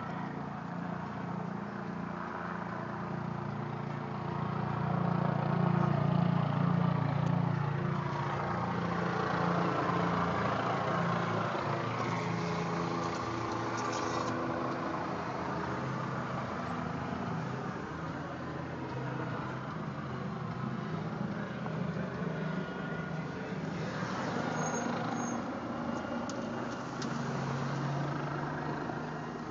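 Car driving, heard from inside the cabin: a steady low engine hum under tyre and road noise, which swells for a few seconds about five seconds in.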